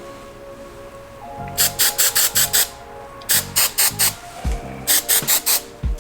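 Hairspray being sprayed in quick short spritzes, three runs of about five each, over background music.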